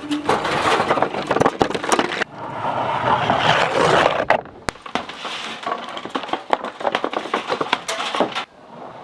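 Hammer blows knocking bricks loose from a chimney, with bricks and mortar rubble scraping and clattering. A longer stretch of rubble noise comes about two to four seconds in.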